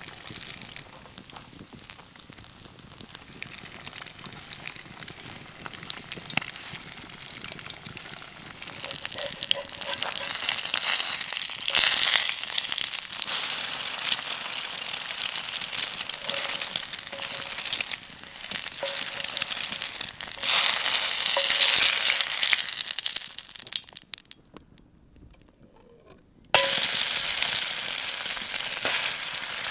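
Hot fat sizzling and spitting in a cast-iron skillet over a campfire as food fries in it. The sizzle grows louder and surges twice. Near the end it drops out almost completely for about two seconds, then comes back loud all at once.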